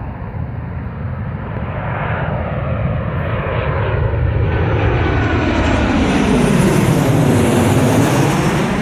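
Boeing 737-8 jet airliner's CFM LEAP-1B turbofans on landing approach, growing louder and brighter as it comes close and passes, peaking near the end.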